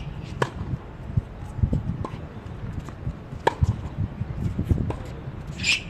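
A few sharp knocks of tennis balls on the courts, spaced a second or more apart, over a steady low rumble, with a brief high squeak near the end.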